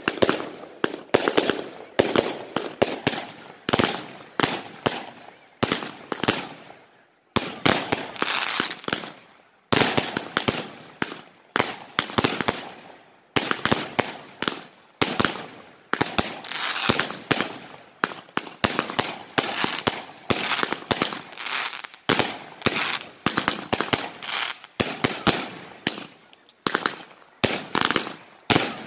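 Fireworks finale: a rapid, near-continuous barrage of launches and bursting shells with crackle, several bangs a second, with a brief lull about seven seconds in.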